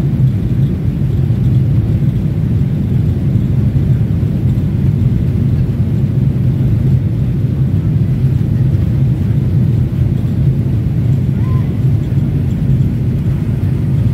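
Airliner cabin noise: the steady low rumble of the engines and rushing air, heard from a window seat inside the cabin.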